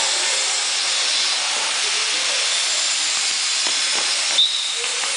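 Steady loud hiss over the court. A few faint thuds from the ball and players' feet come between about three and four seconds in, then a brief high squeak.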